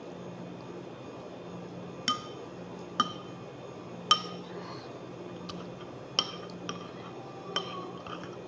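Metal spoon clinking against a ceramic soup bowl: five sharp, ringing clinks about a second apart, with a few fainter taps, over a steady low hum.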